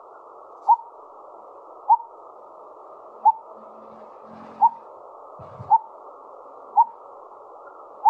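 Recording of a coppersmith barbet calling: a slow series of short, identical 'tuk' notes, about one a second, seven in all. It is played back over a video-call screen share, so it sounds thin, with a steady hiss behind it.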